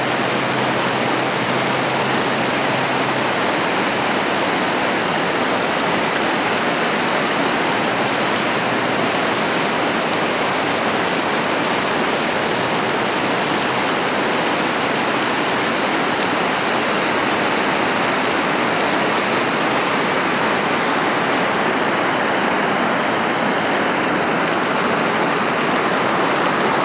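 Steady rush of river water, with small waves washing against the bank.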